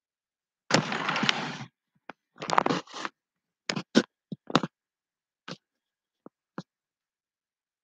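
Handling noise: two bursts of scraping and rustling, each about a second long, then a scattered string of short clicks and taps, with dead silence between them.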